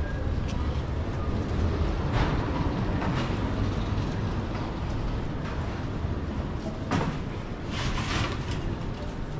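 City street ambience: a steady low rumble, with a few sharp knocks or clicks scattered through.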